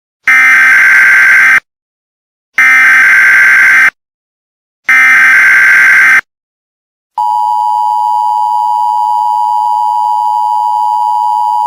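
Emergency Alert System tones: three loud, buzzy SAME header data bursts of about a second and a quarter each, about a second apart. Then, about seven seconds in, the steady two-tone EAS attention signal starts, marking the start of an emergency alert message.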